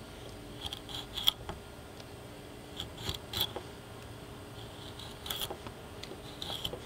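Mora draw knife shaving an oak handle block: about four short scraping cuts roughly two seconds apart, several ending in a sharp click.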